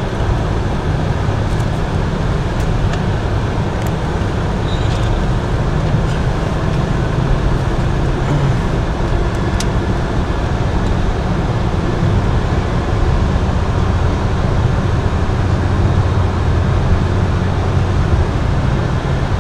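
Steady road noise inside a moving car's cabin, mostly a low rumble from the tyres and engine.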